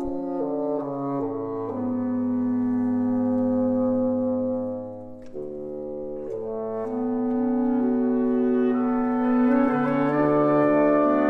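Reed quintet of oboe, clarinet, saxophone, bass clarinet and bassoon playing sustained, slowly changing chords. The sound drops away briefly about five seconds in, then the held chords build and grow louder.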